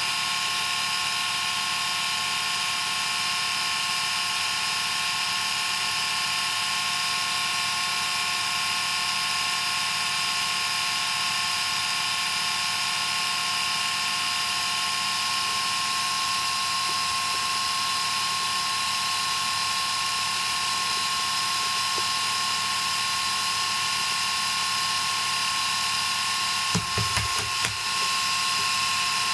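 Small corded electric shaver running on a bed with a steady high motor whine. Near the end there are a few short knocks and thumps as a cat paws at it.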